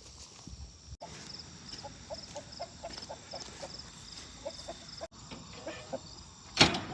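Crickets chirping in short, regular groups, with chickens giving low, repeated clucks about three times a second. Near the end comes one sudden loud knock.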